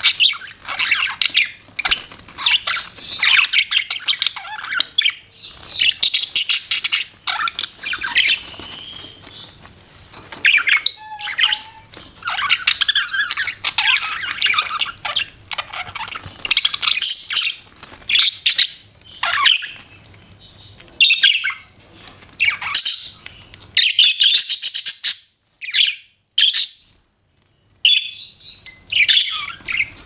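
Budgerigars chattering: a fast, busy run of squawks, chirps and warbling notes, broken by a short pause near the end.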